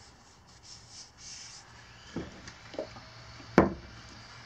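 Paper towel rustling, then a few knocks as objects are handled on a wooden workbench. The last knock, about three and a half seconds in, is sharp and much the loudest.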